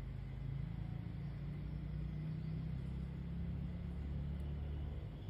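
Low rumble of a motor vehicle's engine, swelling and then easing off near the end.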